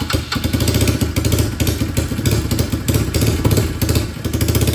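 Honda CRF110 pit bike's single-cylinder four-stroke engine, bored out to 132cc and running on E85, running steadily right after its first start following the rebuild.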